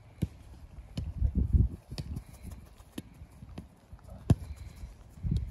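Footballs being kicked and passed on an artificial-turf pitch: sharp thuds about once a second, the loudest a little after four seconds in, with low rumbles in between.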